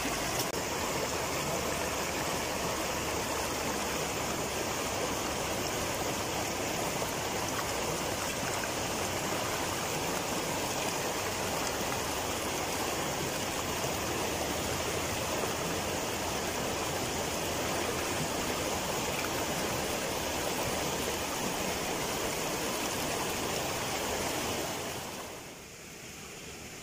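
Shallow rocky river rushing over stones in rapids, a steady rush of water. About 25 s in it falls to a quieter hiss.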